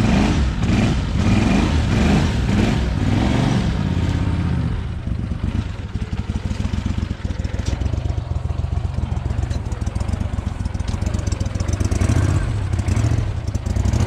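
Boat motor running steadily, a continuous low engine drone.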